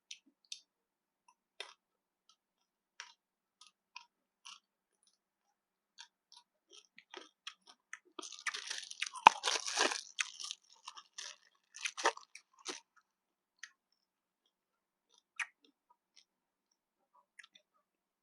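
A person eating koi pla, a Lao tilapia salad, at close range. Sparse mouth clicks come first, then a spell of crunchy chewing about halfway through, and a shorter bout of crunching a couple of seconds later.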